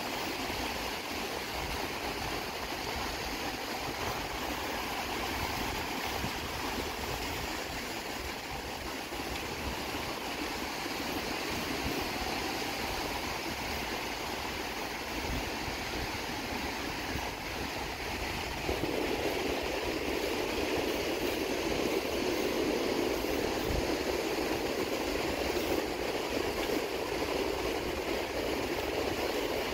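Ocean surf breaking and washing up a sandy beach: a steady rushing noise that gets louder about two-thirds of the way in.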